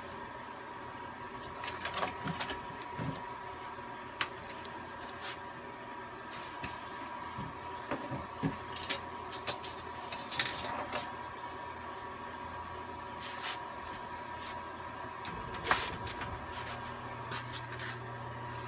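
Scattered small clicks and knocks of things being handled on a workbench, over a steady hum with a faint high tone. The knocks are most frequent between about 8 and 11 seconds in, and there is one sharper knock near the end.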